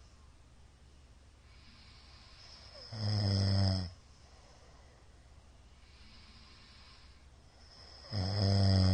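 A man snoring loudly: two snores about five seconds apart, each just under a second long and pitched with a buzzing rasp, with soft breathing between them.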